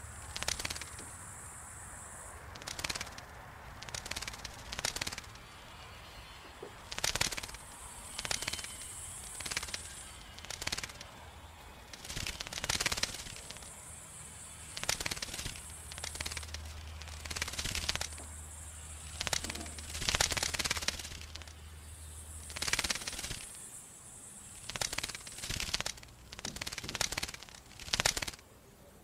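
Bat echolocation calls made audible, heard as rapid trains of clicks in short bursts about every second or two, over a high hiss that comes and goes.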